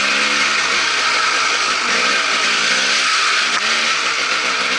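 Dirt bike engine running under load as it rides a trail, its pitch rising and falling again and again as the throttle opens and closes, with a loud hiss over it.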